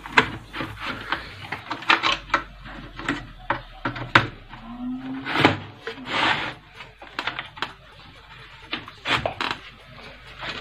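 Irregular clicks, taps and knocks of hands handling the wiring and plastic parts of an open CRT television chassis.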